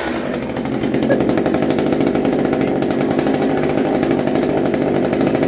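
Petrol chainsaw's two-stroke engine idling steadily with a rapid, even putter.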